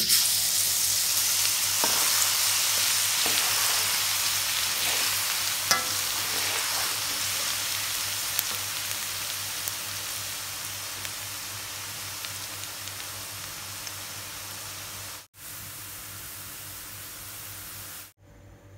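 Minced garlic dropping into hot oil in a wok and frying with a loud sizzle that gradually dies down as the garlic cooks toward golden. A few light clicks of a metal skimmer against the wok come in the first seconds, and the sizzle cuts off shortly before the end.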